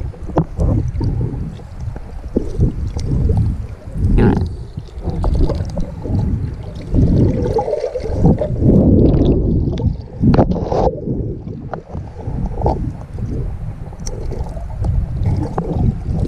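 Muffled underwater water noise, sloshing and gurgling, picked up by a camera held underwater, with frequent knocks and clicks scattered through it.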